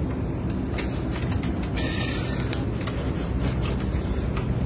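Adjustable wrench gripping and twisting a plastic pipe: scattered sharp clicks and creaks, with a short squeak about two seconds in, over a steady low hum.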